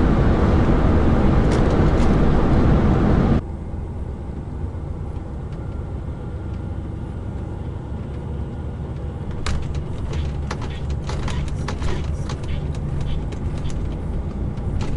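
Lorry cab noise: loud steady road and engine noise at motorway speed that cuts off suddenly about three seconds in, then the quieter low rumble of the truck's engine as it creeps slowly, with scattered clicks and knocks in the second half.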